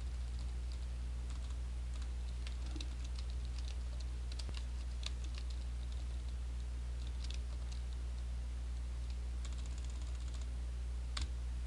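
Typing on a computer keyboard: scattered, irregular keystrokes as text is edited, over a steady low hum.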